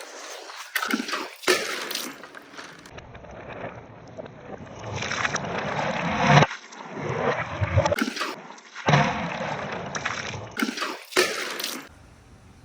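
Marbles and balls rolling down a handmade wooden gutter track: a rumbling, rattling roll that swells and fades, broken by several sharp clacks as they knock against the wood and each other.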